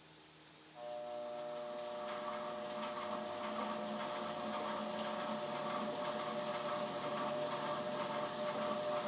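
Treadmill DC motor starting about a second in and running steadily at low speed, turning the horizontal mill's spindle through its belts and pulleys: a steady hum of several tones that grows slightly louder.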